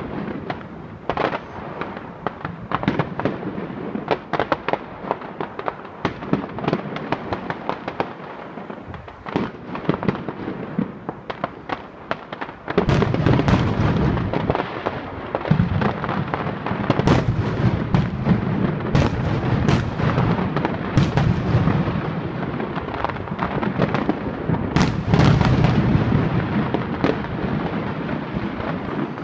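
Aerial firework shells bursting in a rapid string of bangs and crackles. About halfway through it grows louder and denser, with a deep rumble under the bangs.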